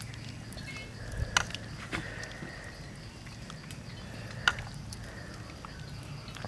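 Wooden ladle scooping thick rice porridge from a clay pot into a ceramic bowl, with a few sharp knocks of the ladle against the rims over a steady low background hum.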